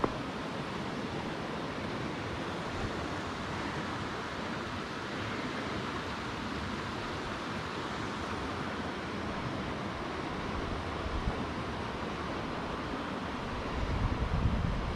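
Steady rush of a river rapid flowing over rocks. A low rumble comes in near the end, wind on the microphone.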